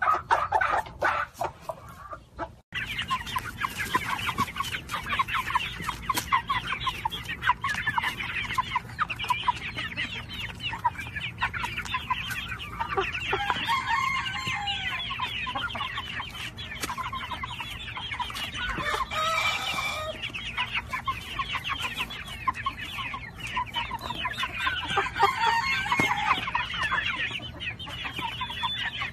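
A flock of young chickens clucking and cheeping together in a busy, continuous chatter. A few louder, longer calls stand out about 14, 19 and 25 seconds in. The sound drops out briefly near the start.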